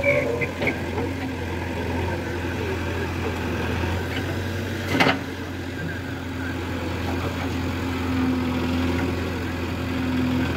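JCB backhoe loader's diesel engine running steadily while the rear backhoe digs mud. There is a single sharp knock about halfway through.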